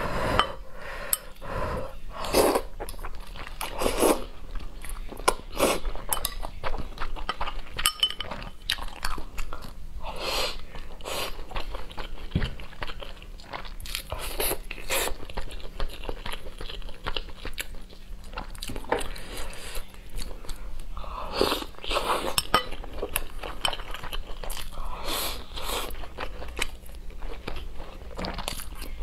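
Close-miked eating: glass noodles slurped in, then braised pork ribs bitten and chewed with wet, irregular chewing and biting sounds.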